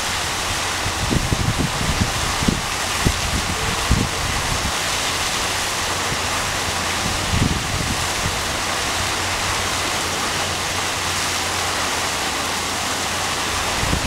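Steady rush of a small artificial waterfall pouring into a pool, with a polar bear splashing in the falling water. Several short low splashes come in the first few seconds and one more about halfway through.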